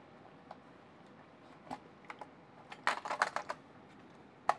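Scattered clicks and taps of a plastic toy case being handled and pried at, with a quick run of clicks about three seconds in and a sharp click near the end.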